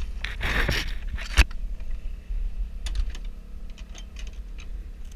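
Light clicks and rattles of bowfishing gear being handled on the boat, with a sharp knock just over a second in after a short rush of noise, over the steady hum of the boat's motor.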